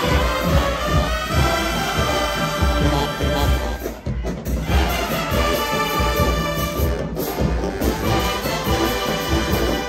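Brass band music, horns over a steady drum beat, with a brief break about four seconds in.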